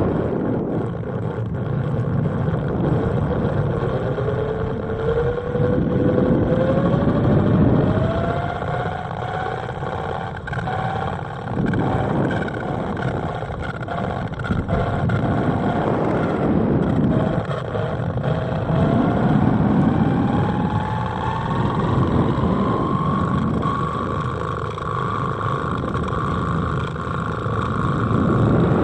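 Wind buffeting the microphone of a balloon-borne 360 camera payload in flight: a rumbling noise that surges and eases every few seconds. Through it a thin tone climbs slowly and steadily in pitch.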